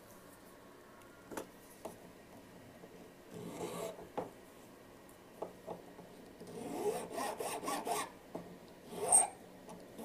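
Needle file scraping a small metal jewellery piece braced on a wooden bench pin. The strokes come in short runs, one about 3.5 s in and a longer run of rapid strokes about 7 s in, with the loudest scrape near the end and a few light taps between.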